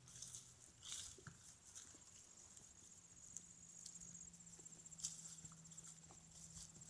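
Near silence outdoors: a few faint footsteps on a trail, with a faint, high, rapidly pulsing trill for a few seconds.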